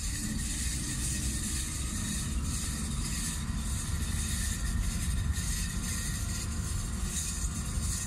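Steady engine and road rumble heard from inside a vehicle's cabin while it drives along a wet road.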